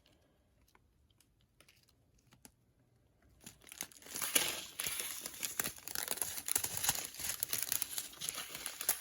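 Plastic packs of diamond-painting gems crinkling and rustling as they are handled, starting about three and a half seconds in and continuing with many small clicks. Before that it is quiet, with a few faint ticks.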